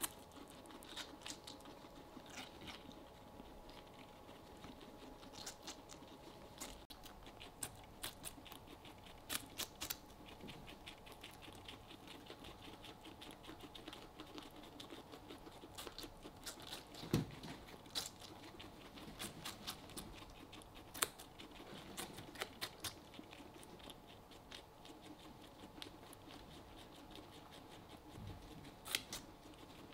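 Guinea pigs chewing watermelon: runs of quick, soft crunchy clicks as they bite and chew the juicy flesh, with a few louder bites now and then.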